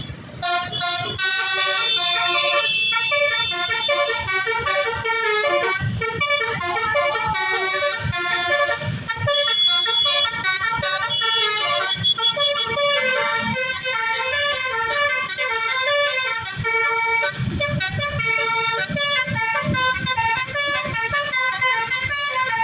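Basuri telolet bus horn, a multi-tone musical horn, playing a fast tune of quickly changing notes without a break.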